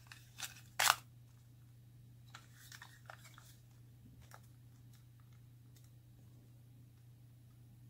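Happy Meal toy packaging being torn open and handled: one sharp tear about a second in, then faint scattered rustles and taps, over a steady low hum.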